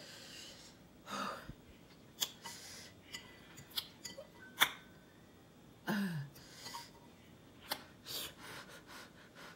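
A person eating spicy noodles with a fork from a glass bowl: scattered sharp clicks and smacks and several short breaths. A brief low "mm" with a falling pitch comes about six seconds in.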